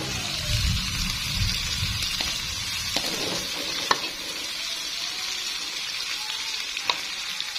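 Chilies, garlic and shallots sizzling in hot oil in a wok, being sautéed until wilted, stirred with a metal spatula that scrapes through them and clicks sharply against the pan a few times, most clearly about four and seven seconds in.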